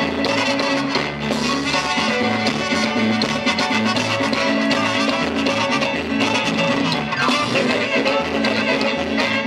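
Upbeat Latin dance music played by an instrumental ensemble, with a steady beat and a moving bass line.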